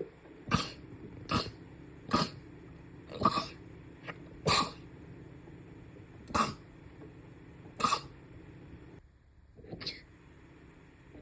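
A run of short, sharp sneezes, about eight of them, one to two seconds apart, with a weaker one near the end.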